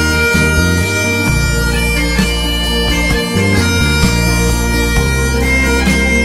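Scottish bagpipes playing a slow melody of long held notes over their steady drones, with a backing track's bass line moving underneath.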